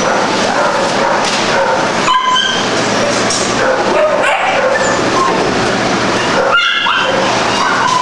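Many dogs barking and yipping at once in a shelter kennel room, a steady, loud din of overlapping barks.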